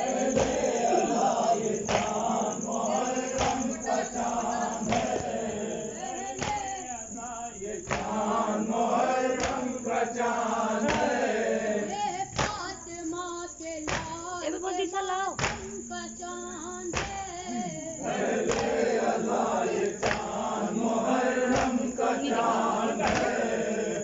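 Group of men chanting a Muharram nauha (lament) in chorus, with a sharp slap about once a second in time with the chant, the beat of chest-beating matam.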